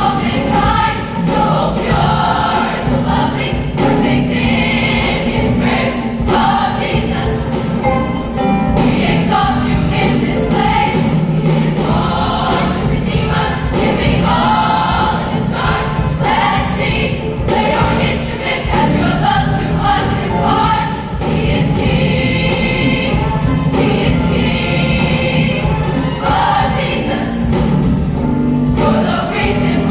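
Combined choir singing a Christmas concert piece with musical accompaniment, continuous throughout.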